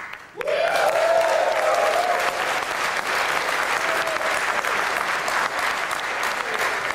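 Studio audience applauding and cheering, starting about half a second in, with a voice whooping over the clapping in the first couple of seconds.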